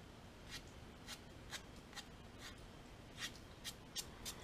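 About ten faint, short scratches at uneven intervals: fingertips rubbing and sprinkling baking soda into a crack in a plastic snowblower gas tank.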